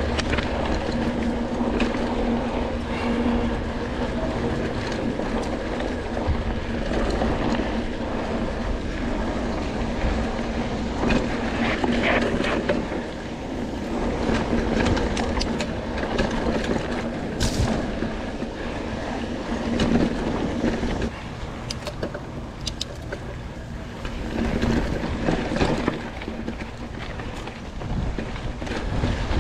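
Mountain bike rolling fast along a dirt trail: a continuous noise of knobby tyres on dirt, with the bike clicking and rattling over bumps.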